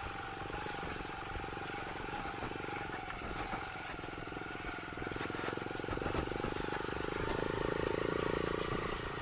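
Motorcycle engine running while being ridden over a rough road, growing a little louder about two-thirds of the way through.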